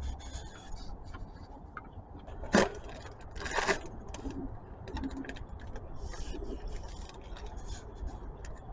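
Scattered metallic clicks and scrapes as a part with a fresh O-ring is threaded back on and snugged by hand, with a sharp clack about two and a half seconds in.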